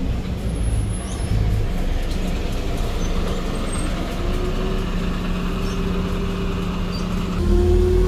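A Volvo B8RLE diesel city bus passes close by at low speed, its engine running steadily. Near the end a louder, deeper engine sound comes in and begins to rise in pitch as a bus pulls away.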